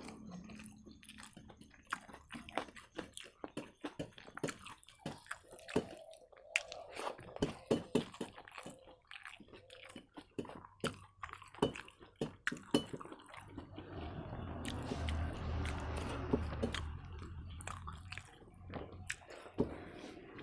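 Close-miked chewing of rice with soft potato and pointed-gourd curry: wet, squishy mouth sounds with many quick lip smacks and clicks.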